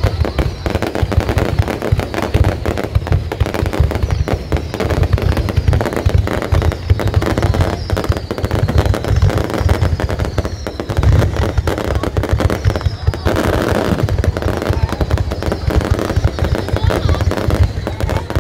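Fireworks display in a heavy barrage: a continuous, rapid crackle of bursting shells with deep booms underneath, and short high falling whistles every second or two.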